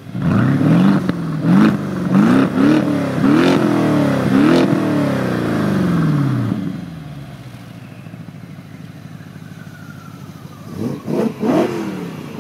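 Wiesmann GT MF4-S's V8, a BMW S65 unit, being revved repeatedly while stationary: six or seven quick blips of the throttle, each rising and falling sharply, heard at the exhaust. It settles back to a steady idle, then a short burst of three more sharp revs comes near the end.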